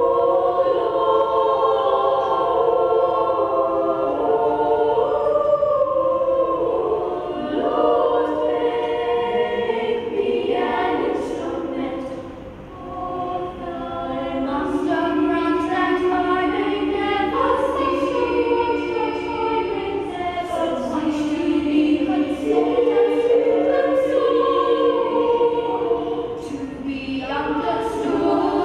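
Children's choir of boys and girls singing a cappella in several-part harmony, holding sustained chords, with a brief break between phrases about twelve seconds in.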